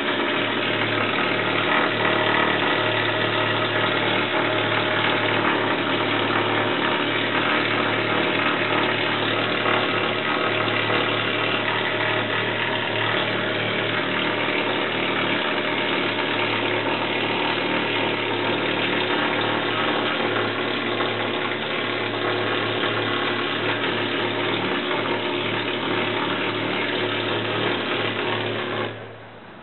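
Handheld pneumatic tool running continuously against the riveted steel hull inside a tank's engine compartment, a loud, steady, unbroken mechanical noise with a low hum under it that stops abruptly near the end.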